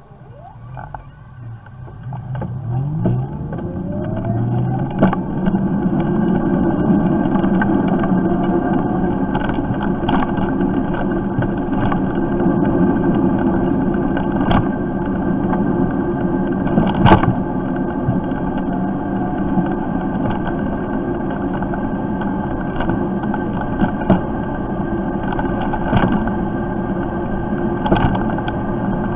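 Lexmoto Impulse 1.5 kW electric moped setting off and riding along a road, heard through its built-in camera. It is quiet at first and grows louder over the first few seconds, with a rising whine as it speeds up. Then it settles into steady road and wind noise with scattered knocks; a sharp one comes a little past halfway.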